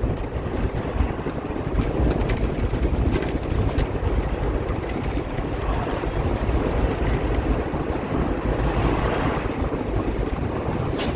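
Steady rumbling rush of wind buffeting the microphone, with a sharp click near the end.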